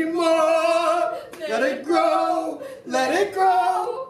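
Voices singing unaccompanied in three drawn-out phrases, each note held about a second, with short breaks between them.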